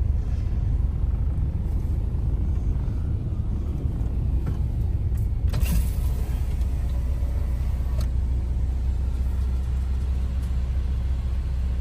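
Steady low rumble of a car's engine and tyres heard from inside the cabin while the car rolls slowly through a motorway toll booth, with a short clatter about halfway through.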